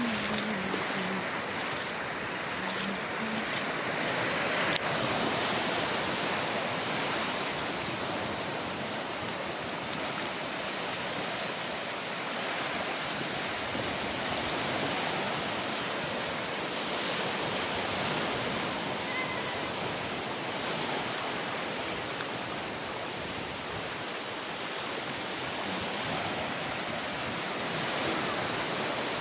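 Sea surf washing onto a beach: a steady rush of breaking waves that swells and eases slowly. One sharp click about five seconds in.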